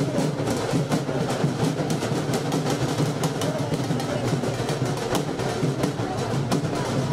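Music with busy drumming and percussion, dense and steady throughout, with scattered sharp clicks.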